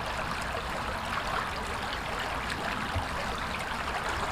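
Small brook babbling steadily over stones.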